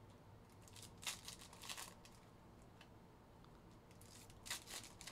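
Foil trading-card pack wrappers crinkling and tearing as packs are ripped open by hand, in two short spells of rustling, about a second in and again near the end.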